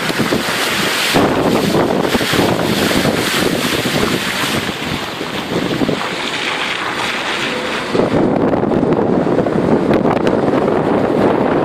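Strong gusting wind buffeting the microphone, over choppy high-tide floodwater washing across a seafront road. The rumble grows heavier about eight seconds in.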